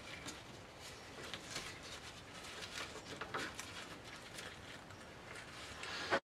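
Dry onion skins and string rustling and crackling as onions are handled and tied onto a hanging string, a loose run of small scratchy ticks. The sound cuts off suddenly near the end.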